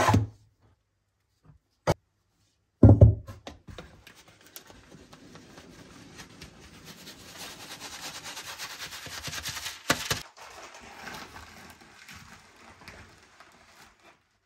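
Flour being sifted through a round wooden-rimmed sieve shaken by hand. There are two loud knocks in the first three seconds. Then come several seconds of fast, even rattling and rustling as the flour passes through the mesh, with another sharp knock about ten seconds in.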